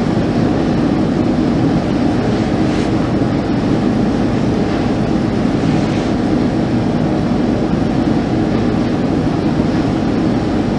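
Loud, steady low mechanical drone with several steady tones mixed in, unchanging throughout, and no clear bang or knock.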